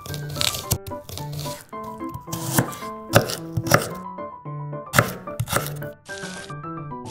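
Small knife chopping a purple onion on a miniature wooden cutting board: a series of sharp cuts in uneven clusters, over light background music.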